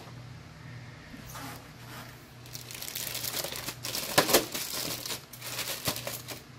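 Clear plastic bag over a radio-controlled truck crinkling as a hand grips and pulls it, sparse at first and then busier and louder from about halfway in.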